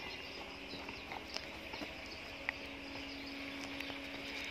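Footsteps on a dirt track and rough field ground, faint, over a steady low hum, with a few light clicks.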